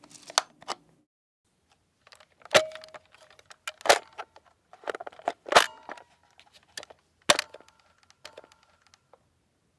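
A series of sharp mechanical clicks and clacks at uneven intervals, four of them louder than the rest, some followed by a short metallic ring.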